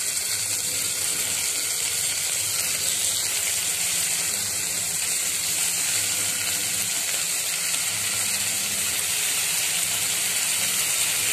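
Hot oil sizzling steadily in an open pressure cooker as stuffed ridge gourds fry with onion and curry leaves.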